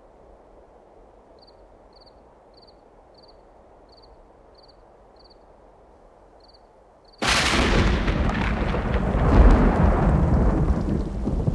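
Faint hiss with a short high chirp repeating steadily, about every two-thirds of a second. About seven seconds in, a sudden loud rumbling noise sets in and keeps going.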